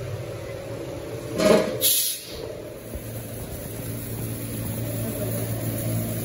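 Steady hum of a Matsui plastic-pellet hopper dryer and the moulding machinery around it. About a second and a half in, two short, loud hisses come one right after the other.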